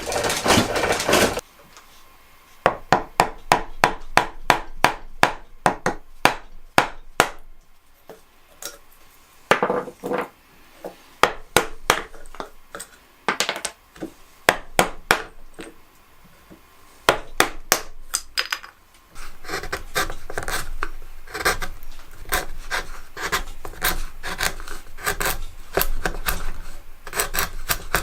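Cedar being turned on a foot-powered spring pole lathe: a hand turning tool scraping and cutting the spinning wood in short rhythmic strokes, a few a second. The strokes are broken by brief pauses and run more steadily over the last third.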